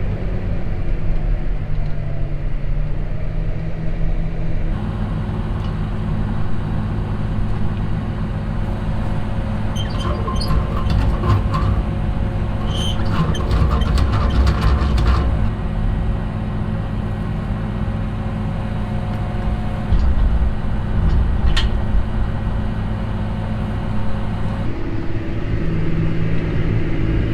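A vehicle engine running steadily, heard from inside the cab, with a spell of rattling and clicking in the middle and a single sharp click later on.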